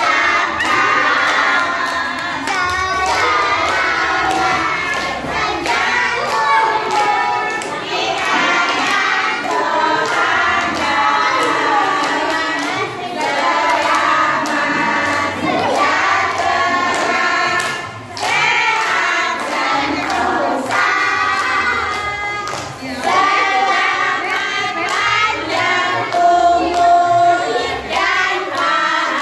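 A group of children and women singing a birthday song together, with hands clapping along.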